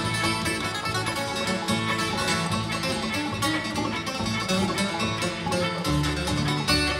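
Live bluegrass band playing an instrumental break with no singing: fiddle, banjo, acoustic guitar and upright bass together. The bass moves to a new low note about six seconds in.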